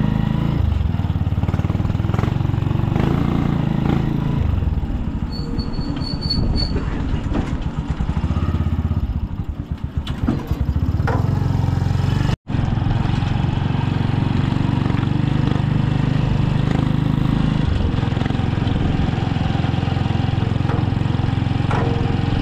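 A motor vehicle's engine running steadily on the road during a ride, its pitch changing a few times. The sound drops out for an instant about halfway through.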